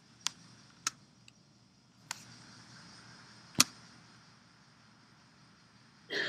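A few sharp, isolated clicks from working the computer's input devices (tablet pen, mouse or keyboard), the fourth the loudest, over a low steady hum.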